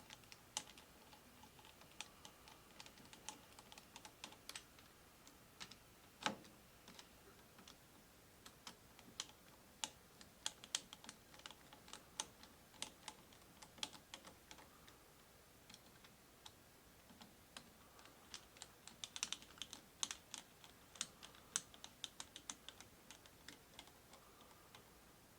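Faint, irregular small clicks and ticks of a hand screwdriver driving the small screws that hold the horn collar to the steering wheel. There is one louder knock about six seconds in and a quick run of clicks near the end.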